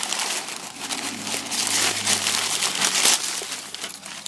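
Brown packaging wrapped around a fire alarm speaker strobe crinkling and rustling as it is handled and pulled off by hand, loudest from about a second and a half to three seconds in.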